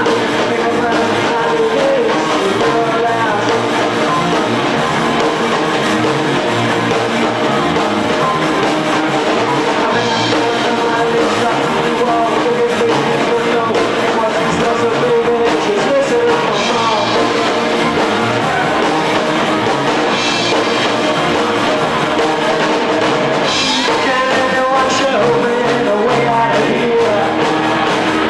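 A live rock band playing, with electric guitar, bass guitar and drum kit together.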